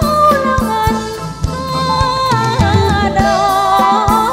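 Thai ramwong dance-band music taken straight from the mixing desk: a melody gliding between notes over a steady drum beat.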